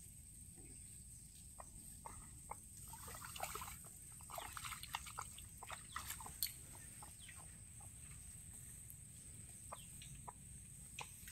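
Chickens clucking faintly: a flurry of short clucks a few seconds in, then scattered single clucks.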